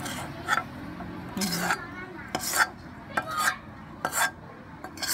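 A utensil scraping and stirring around a wok of frying red ants and ant eggs: a series of short scrapes, one every half second to a second.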